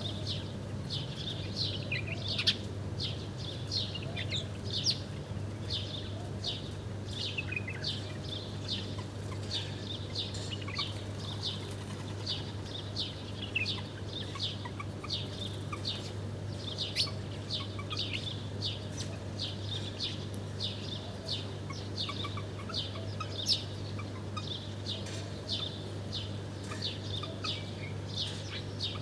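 Small birds chirping continuously, a steady stream of short, high, falling chirps from several birds, over a steady low hum.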